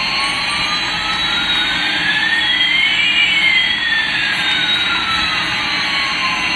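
Toy Airbus A380's electronic jet engine sound: a steady rushing hiss with two whistling tones, one rising while the other falls, crossing about halfway through.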